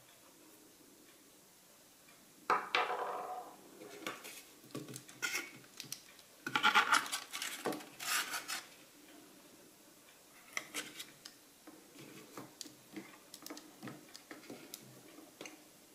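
Photographic paper and darkroom trays being handled: irregular scrapes, taps and clatter starting about two and a half seconds in, loudest around the middle, then lighter scattered taps.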